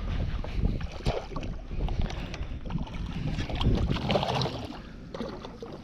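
A hooked bass splashing at the surface beside the boat as it is grabbed by hand, loudest about four seconds in. Wind rumbles on the microphone throughout, with scattered small clicks of rod and reel handling.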